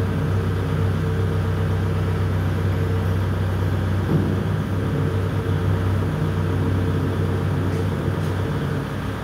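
Compact tractor's engine idling steadily with a constant low drone.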